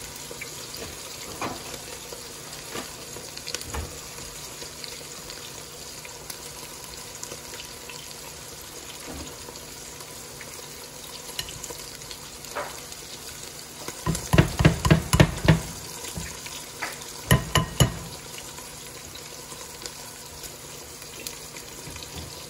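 Beef shanks sizzling steadily as they brown in olive oil in a Dutch oven. In the second half come two short runs of quick, loud knocks, a few seconds apart.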